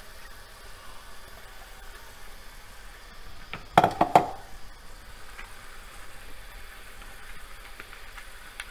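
Chicken and ground masala paste sizzling softly in a steel pot, with a quick run of about four knocks about four seconds in.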